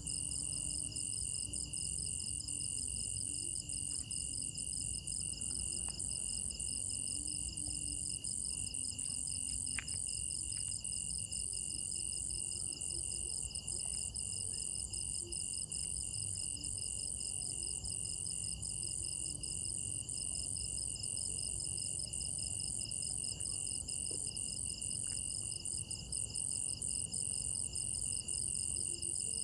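Crickets trilling in a steady chorus: several continuous high trills layered at different pitches, with no break.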